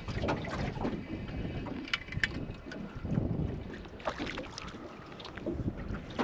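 Wind buffeting the microphone in uneven gusts, with water lapping and a few small clicks and splashes.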